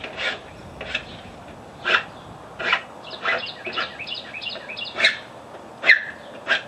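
Hand file rasping along the cut edge of a plastic scooter cover, one short stroke about every second, taking the burrs off freshly cut notches. In the middle comes a run of quick, high squeaky strokes.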